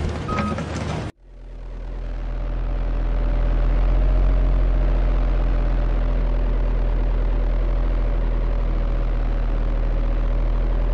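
Machine noise with a reversing beep for about a second, then an abrupt cut to a steady, low engine drone that fades in and holds evenly.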